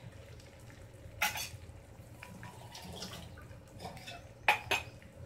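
Eggs frying quietly in an onion-and-masala base in a pan, a faint sizzle, with short clatters of kitchen utensils twice: about a second in and again near the end.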